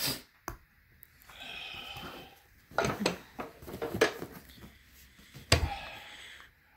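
Knocks and clatters of a gaming chair's parts being handled during assembly: the seat with its metal tilt-mechanism plate being moved and set down, with the sharpest knock about five and a half seconds in.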